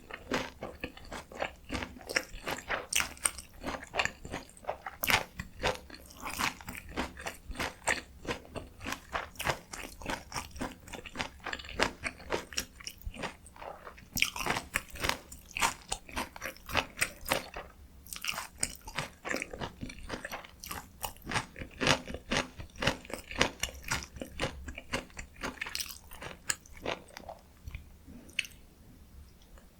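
Close-miked chewing and biting of dakgalbi, spicy stir-fried chicken, with rapid, irregular wet crackles and crunches. It tails off near the end.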